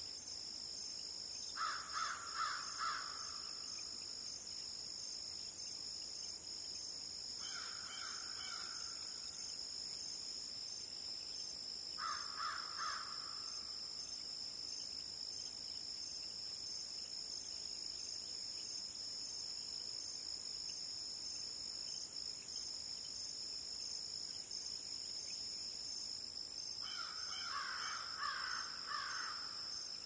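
Morning swamp ambience: a steady, high-pitched chorus of crickets and other insects, broken four times by short bursts of rapid, harsh animal calls, each lasting a second or two.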